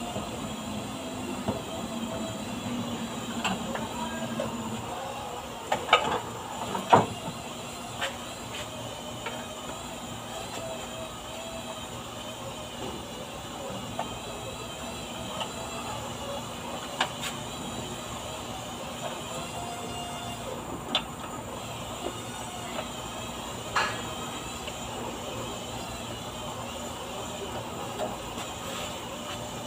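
Scattered sharp clicks and knocks of hand tools working on a car's underside, a cluster about six to eight seconds in and then single ones every few seconds, over a steady rumbling background noise.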